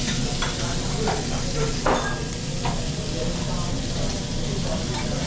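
Kobe beef steak sizzling on a hot teppanyaki steel griddle, with a few sharp clinks of the chef's knife and fork against the plate as the meat is cut, the loudest about two seconds in.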